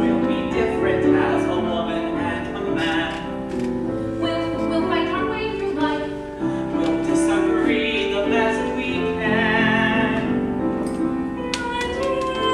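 Voices singing with piano accompaniment in a show-tune style, ending in a long held note with vibrato.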